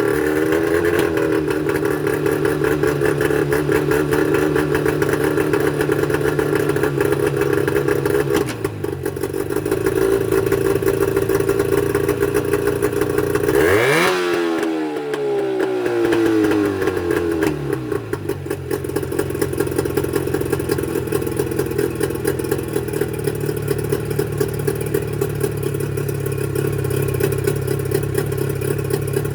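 Mercury 25 hp two-stroke outboard engine running steady at low speed, revved up sharply once about halfway through and settling back down over a few seconds. This is the engine whose running rough the mechanic puts down to its reed valves.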